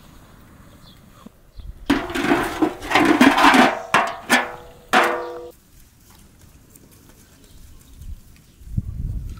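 Metal pan lid, an upturned pan, being set over a wide metal cooking pan: a couple of seconds of scraping and clattering metal, ending in a few clanks with a short metallic ring.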